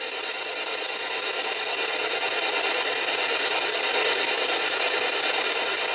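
PSB7 spirit box sweeping FM radio in reverse at its fastest speed: a steady hiss of radio static from the rapid tuning, growing gradually louder.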